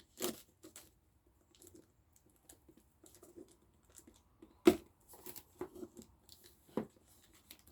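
Cardboard and plastic packaging being torn open by hand, with scattered soft crackles and rips and a sharp rip about two-thirds of the way through.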